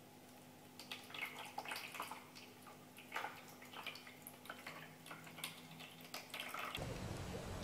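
Water splashing and dripping in a pet drinking fountain as a cat paws at its falling stream, in irregular small splashes over a faint steady hum. Near the end the splashing cuts off and a louder steady rushing noise takes over.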